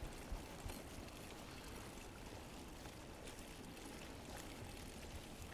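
Faint, steady outdoor hiss with a few soft clicks.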